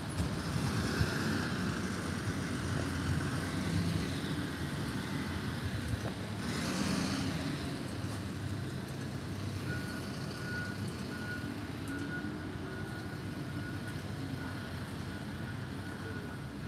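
Street traffic on a wet road: a steady rumble of engines, with a vehicle swishing past on wet tarmac about seven seconds in. From about ten seconds in, a short electronic beep at one high pitch repeats steadily.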